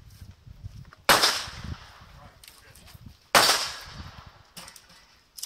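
Two pistol shots about two seconds apart, each followed by a fading echo.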